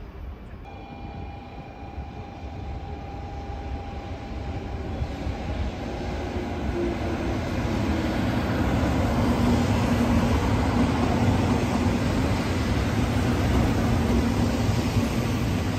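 Doctor Yellow, the 923-series Shinkansen inspection train, running through the station at high speed. Its rumble grows over the first eight seconds or so as it approaches, then holds as a steady rush while its cars go by.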